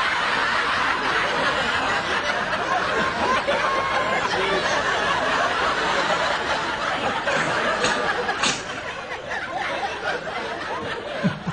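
Several voices snickering and chuckling in a dense, continuous din that thins out and grows quieter about eight and a half seconds in.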